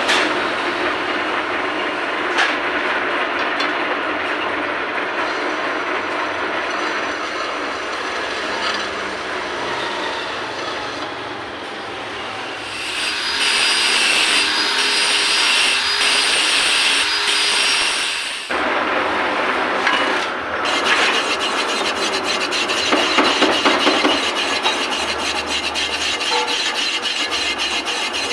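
Metal lathe running with a steady machining noise while turning meat grinder parts. Partway through it grows louder, with a high ringing whine from the tool cutting the metal for about six seconds. It then stops abruptly, and a rough rasping, rubbing sound of rapid scraping strokes follows.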